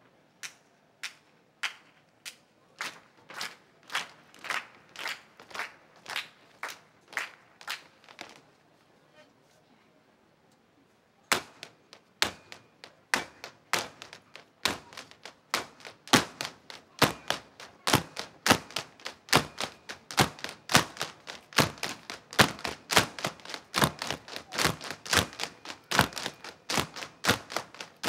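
Irish dance hard shoes striking the stage in rhythm, with no music. A sparser run of sharp beats quickens over the first eight seconds, stops for about three seconds, then a dense rapid rhythm of many beats from several dancers takes over.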